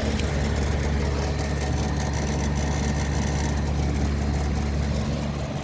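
Central air conditioner's outdoor condensing unit running close by: a steady low compressor hum under the rush of its condenser fan. It eases off slightly near the end.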